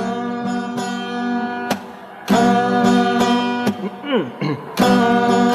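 Yamaha acoustic guitar strumming chords that ring out, with a fresh strum a little over two seconds in and another near the end.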